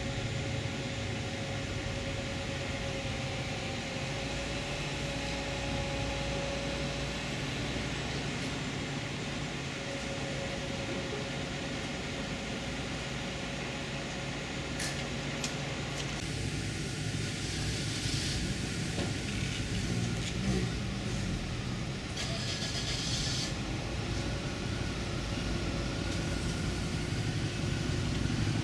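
Utility bucket truck's engine running steadily at idle, with a few short clicks about halfway through and two brief bursts of hiss soon after.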